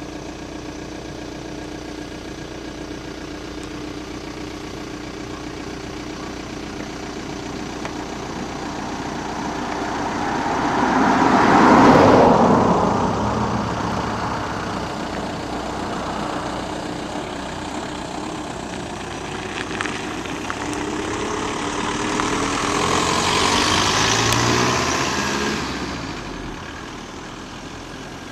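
Motorcycles passing on the road over a steady engine hum. One swells to its loudest about twelve seconds in and fades away. A second comes by around twenty-three seconds in, its engine note rising in steps.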